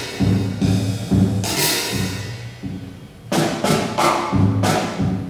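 Drum kit played in free improvisation: tom and bass-drum strokes under crashing cymbals. A long cymbal wash comes about one and a half seconds in, and a quick run of sharp strikes about three and a half seconds in.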